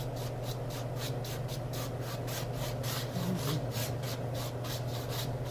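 Filbert paintbrush scrubbing oil paint onto canvas in quick back-and-forth strokes, about four to five a second.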